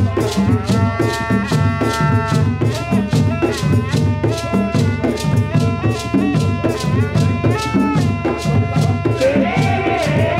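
Live Tiv kpatuma dance music: drums and rattles keep a quick steady beat of about three strikes a second. A wind instrument plays held notes over them that waver and bend in pitch.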